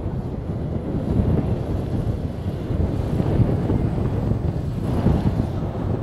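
Cat 140M2 motor grader's diesel engine working under load as its V plow pushes through deep snow, a steady low rumble, with wind buffeting the microphone.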